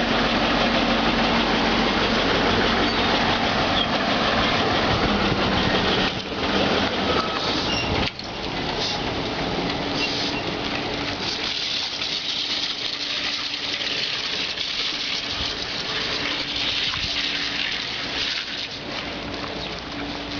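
Trolleybus on the move: a steady rushing noise with a faint electric hum. About eight seconds in, the rushing eases and the hum settles at a higher pitch.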